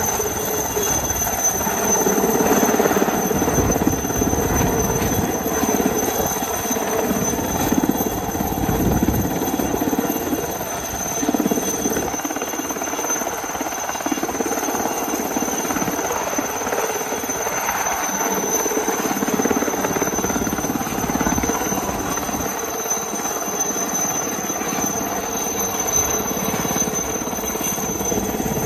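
Indian Coast Guard Chetak (Alouette III) helicopter hovering close by: a continuous rotor noise with a steady high-pitched turbine whine over it.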